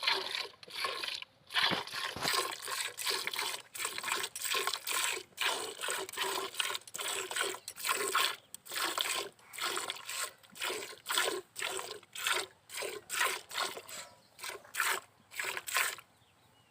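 A cow being milked fast by hand: rhythmic squirts of milk, about two strokes a second, stopping near the end.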